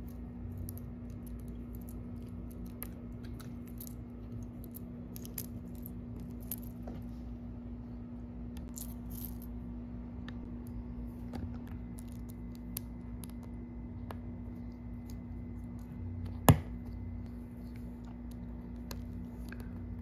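Daiso Petit Block mini plastic bricks clicking and tapping as they are picked up and pressed together, with one much louder sharp snap about three-quarters of the way through. A steady low hum sits underneath.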